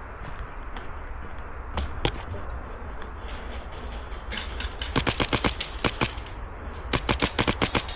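Airsoft guns firing: a couple of single shots, then rapid strings of shots at about ten a second in the second half.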